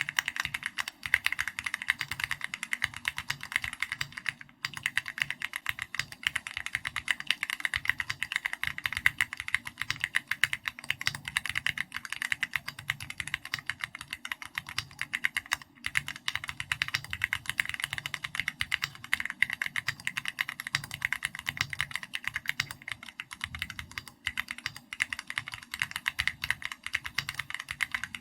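Continuous fast typing on a custom mechanical keyboard: an SPM AL66B aluminium case fitted with Keychron Red linear switches and XVX keycaps, a dense run of key clicks broken by a few brief pauses.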